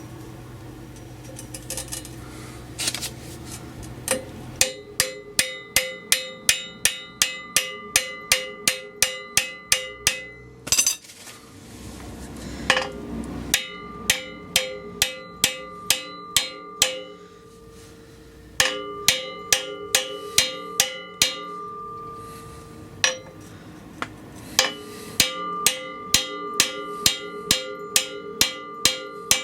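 Hammer gently tapping the oiled rear hub bearing onto an MGA 1600's axle. The blows come at about three a second in several runs with short pauses, each one ringing with a clear metallic tone.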